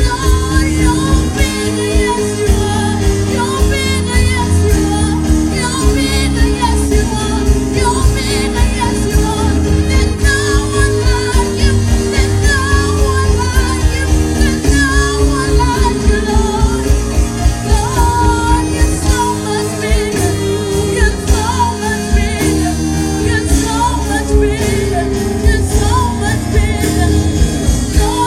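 Live gospel music through a church PA: a woman singing over keyboard chords and bass with a steady beat.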